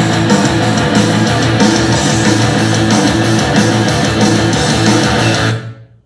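Heavy rock music with electric guitar and a steady beat playing through a portable speaker and picked up in the room. It drops away quickly near the end.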